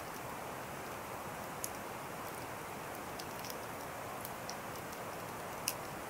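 Wood fire burning down to glowing embers: a steady hiss with scattered sharp crackles and pops, one clear pop about one and a half seconds in and the loudest just before the end.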